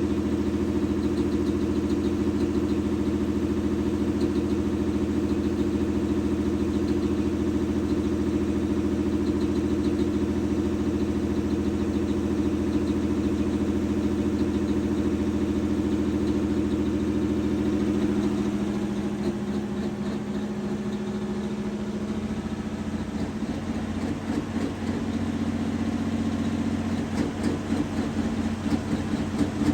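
Large engine idling steadily. Its tone shifts a little over halfway through, and near the end it turns to an uneven, pulsing lope.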